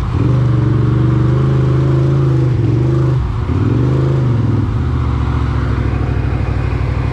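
ATV engine revving and held high with short dips, then dropping to a lower, steady pulsing run about five seconds in, as the four-wheeler strains in a mud hole where it is stuck.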